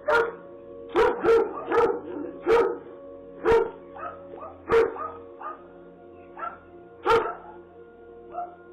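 A dog barking repeatedly, a sharp bark about every half second to second at irregular gaps.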